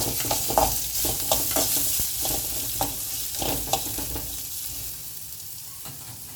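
Whole spices with ginger, garlic and green chilli frying in a little oil in a pan: a steady sizzle with short scraping strokes as they are stirred. The stirring stops about two-thirds of the way in, leaving the sizzle, slightly quieter.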